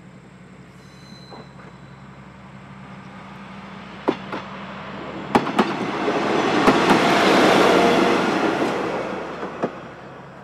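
A KiHa 120 diesel railcar passing close by: its engine and running noise build up, peak and fade away. Sharp clacks mark the wheels striking rail joints, several close together as it goes by and one more near the end.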